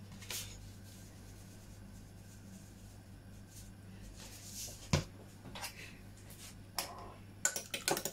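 A few light clicks and one sharp knock about five seconds in, as seasoning containers are handled and set down on the counter; near the end a fork starts whisking eggs in a bowl, a fast run of light ticks against the bowl's side.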